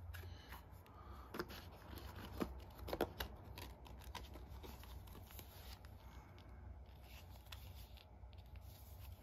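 Quiet handling of a deck of plastic playing cards and their cardboard box: soft rustles and light clicks, with a few sharper taps about one and a half and three seconds in, over a low steady hum.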